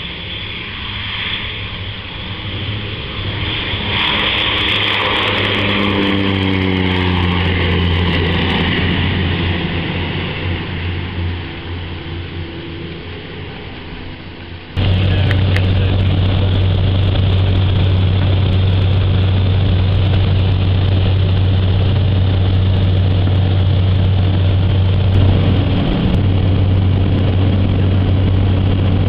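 Light propeller aircraft's engine drone with a strong steady low hum. It swells and fades over the first half, then after an abrupt cut about halfway through a louder, even engine drone continues, as heard inside the cabin in flight.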